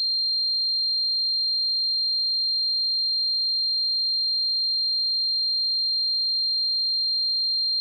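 A steady, high-pitched pure tone that holds one pitch without any change: a synthesized tinnitus ringing sound effect.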